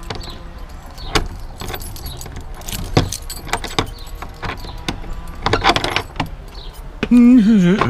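Packaging being handled and opened: scattered clicks, knocks and rustling, then near the end a loud wavering squeal lasting under a second.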